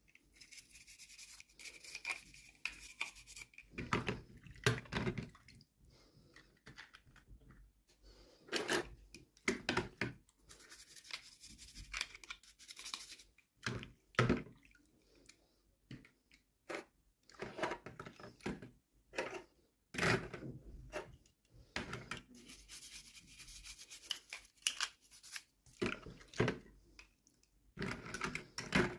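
Hands unboxing a toy: irregular rustling, rubbing and clicking of packaging being handled and opened.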